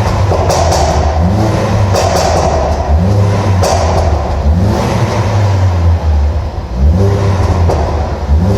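Ford Focus ST250's turbocharged 2.0 EcoBoost four-cylinder engine rising and falling in revs several times, with sharp exhaust crackles and pops as the revs drop, from a tune set up for overrun crackles. The pops come mostly in the first half, and the revs climb again near the end.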